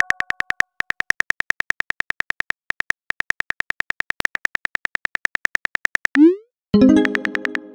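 Synthetic keyboard-typing clicks from a texting-app animation: rapid, evenly spaced ticks for about six seconds. Then a short rising blip and a ringing chime near the end as the message is sent.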